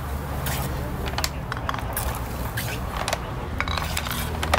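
Scattered clinks and clatter of metal cooking utensils at a tandoor, over a steady low hum.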